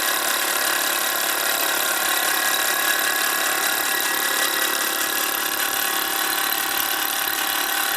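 Bowman M158 single-cylinder toy steam engine running flat out on compressed air at about 1500 RPM: a steady, even whirr with no change in speed.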